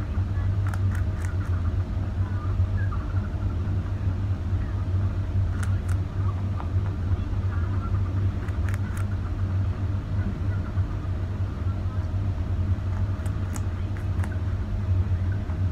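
Pet rabbit biting and crunching a hand-held carrot: short clusters of three or four sharp crunches every few seconds, over a loud steady low hum.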